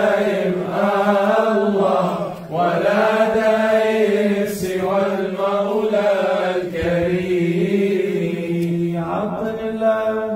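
Chanting of an Arabic Sufi devotional poem (qasida), sung in long drawn-out phrases over a steady low held note, with short breaks between phrases.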